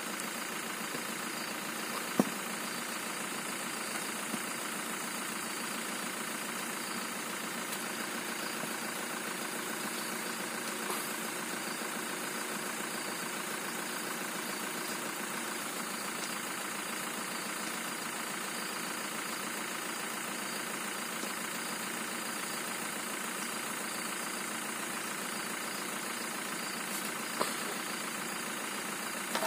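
Ambulance van engine idling steadily, with a few sharp knocks, the loudest about two seconds in and another near the end.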